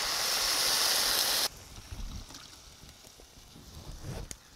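Fish broth poured from a bowl into a hot pot of browned grated yam and sweet potato: a loud, even rushing hiss of liquid hitting the hot base that cuts off suddenly about a second and a half in. After that, only faint small knocks.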